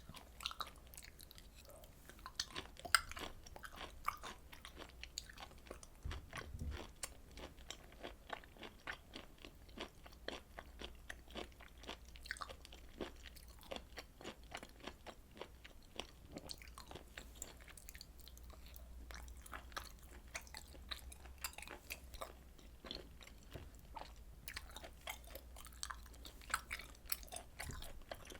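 Close-miked chewing of grilled beef and pork intestine (daechang and makchang), with quick, irregular clicks of the mouth and teeth several times a second and occasional louder bites.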